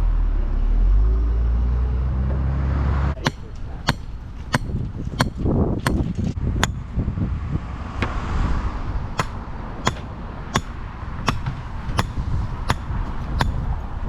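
A heavy engine rumbles for about three seconds, then cuts off abruptly. After that comes a steady series of sharp clicks, roughly one and a half per second.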